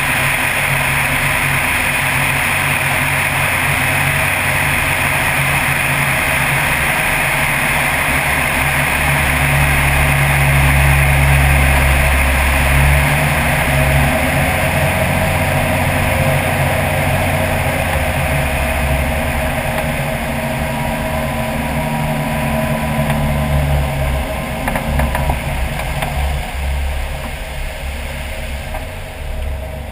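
Floatplane's piston engine and propeller running steadily, a little louder about ten seconds in, then easing off over the last few seconds.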